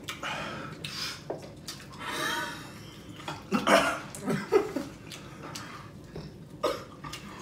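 Men eating very hot wings: short mouth noises and breaths from the heat, with a burst of laughter about three and a half seconds in.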